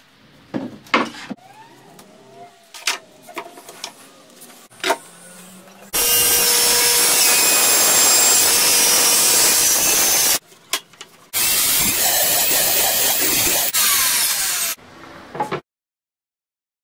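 Scattered knocks and handling noise of a wooden panel, then a circular saw cutting a sheet in two loud runs of about four seconds each, with a short break between. A few clicks follow before silence near the end.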